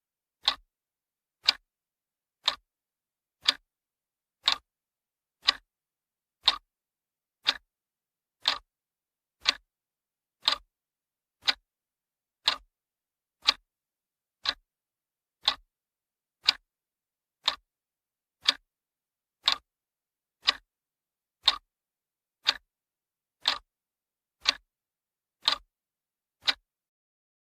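Clock ticking, one sharp tick each second, evenly and steadily, stopping about a second before the end.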